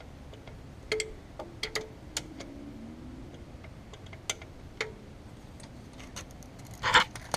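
Hand tools working the fuel pump's retaining bolts: a handful of scattered, sharp metal clicks of a wrench, with a louder rustling clatter near the end.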